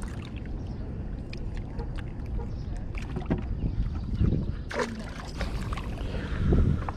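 Low, steady rumble of wind and river water on the microphone at the rocky bank, with scattered light clicks from handling fish and tackle. About five seconds in there is a short splash as a small white bass is tossed back into the river.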